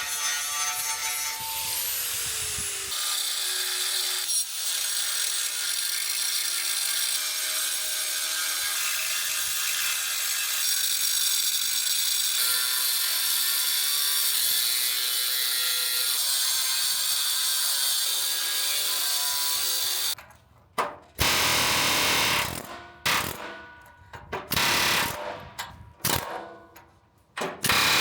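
Power tool cutting into the steel rivets of a truck frame cross member, running steadily and high-pitched for about twenty seconds, then stopping and starting in short bursts through the rest.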